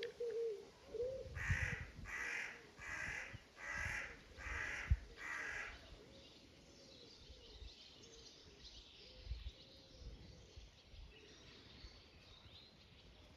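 A crow cawing six times in a steady series, about two-thirds of a second apart, then falling quiet.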